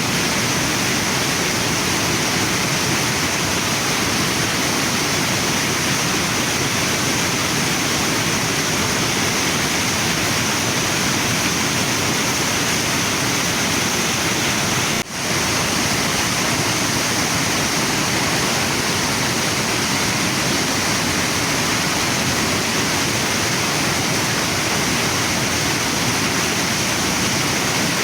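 A waterfall and a river running steadily, with a brief drop in level about halfway through.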